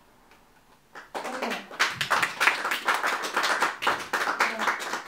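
Audience applauding, many hands clapping, starting about a second in.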